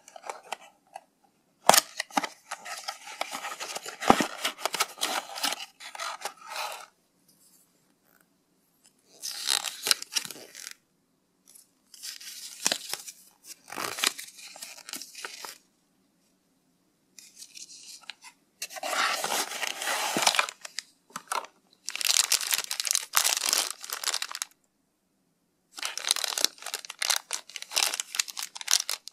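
Hands unpacking a small boxed toy: cardboard box and paper leaflet rustling, then a clear plastic bag crinkling. It comes in about six bursts with short pauses between them.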